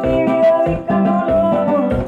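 Music playing: sustained melody notes over a steady, repeating bass beat.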